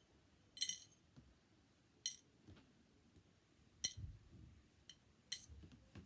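Small metal fishing tackle handled between the fingers, giving a handful of short, light clinks about a second apart.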